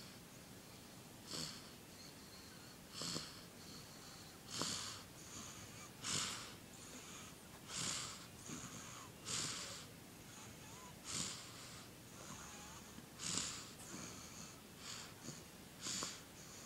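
Sleeping baby snoring softly, one short noisy breath about every one and a half seconds, with a faint high whistle between some of them.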